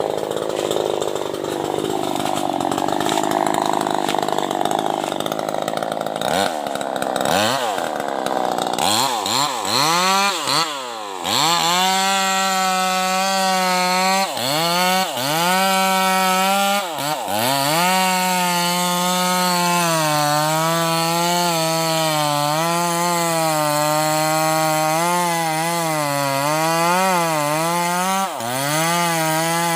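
Bosco 5880 two-stroke chainsaw cutting sengon wood at full throttle for about six seconds. The revs then drop and pick up again several times, and from about twelve seconds the saw runs at steady high revs, wavering slightly and dipping briefly now and then.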